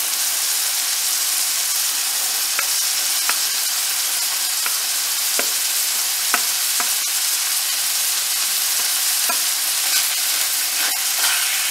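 Vegetables sizzling in hot oil and masala in a pan as they are scraped in from a plate and stirred, with a wooden spatula scraping and clicking now and then against the plate and pan.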